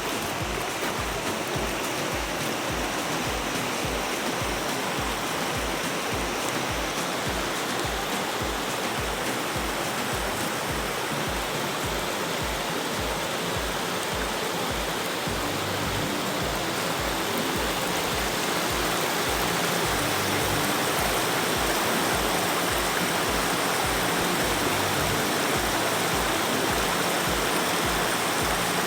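Mountain stream rushing steadily over rocks, with soft background music that carries a steady low beat.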